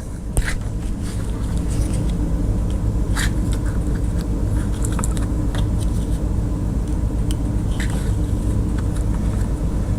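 A steady low droning hum, with a few light clicks and rustles from wires and heat-shrink tubing being handled.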